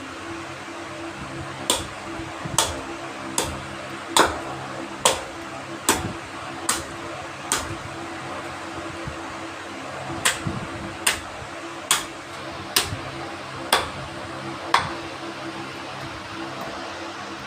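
Two runs of sharp strikes, eight and then six, at a steady pace a little under one a second, with a pause of about three seconds between them; a steady hum runs underneath.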